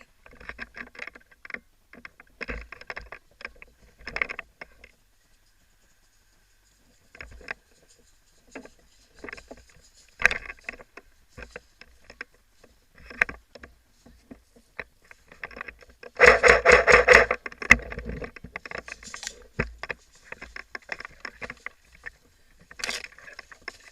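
Scattered clicks and rustling of movement, broken about two-thirds of the way through by a burst of rapid, evenly spaced shots lasting about two seconds: an airsoft gun firing on full auto.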